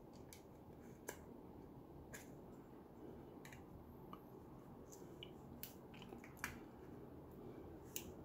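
Faint small clicks and taps, scattered about once a second, from a lithium-ion battery pack and the plastic speaker casing being handled as the battery is pried out.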